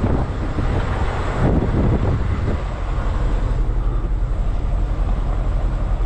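Semi-truck's diesel engine running with a steady low rumble as the truck creeps along at low speed. Wind noise on the microphone adds a hiss over the first couple of seconds.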